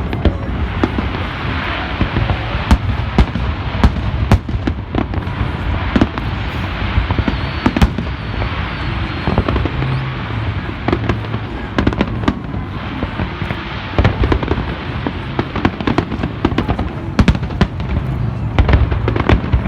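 Fireworks display: shells bursting in a rapid, irregular series of bangs over a continuous rumble and crackle.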